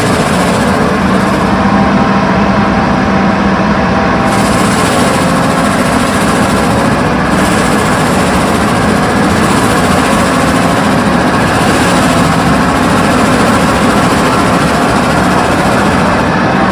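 Doosan DX340LC excavator running loud and steady with its hydraulic Enviro mulcher attachment working. The hiss in the upper range swells and drops every few seconds.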